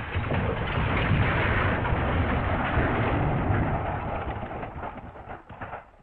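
Elephant smash crash sound effect: a long, dense crashing rumble that fades out over the last couple of seconds.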